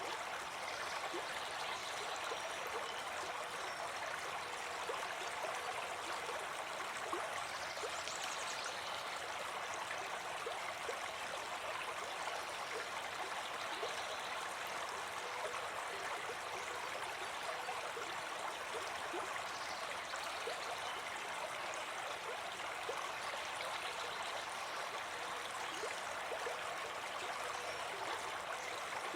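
A small brook babbling steadily, water trickling and gurgling over stones.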